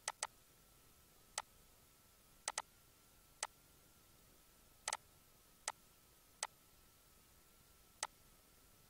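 Computer mouse button clicks, sharp and irregular, about ten in all, some in quick pairs, as points of an arc are picked in CAD software. A faint steady high whine sits underneath.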